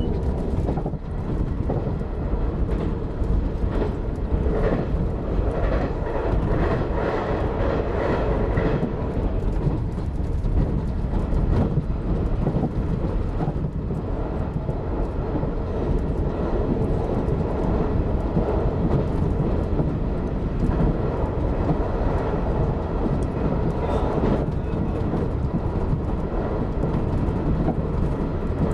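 JR 381 series limited express train running at speed through a tunnel, heard from inside the front car: a steady, even noise of wheels on rail and running gear.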